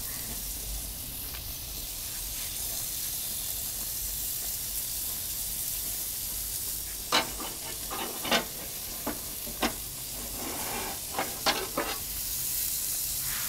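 Hamburger patties sizzling on a cast-iron Grizzler plate in a gas-fired Ooni Koda 16 pizza oven, a steady hiss. In the second half come a series of sharp clicks and clinks as a long metal tool reaches in to the plate.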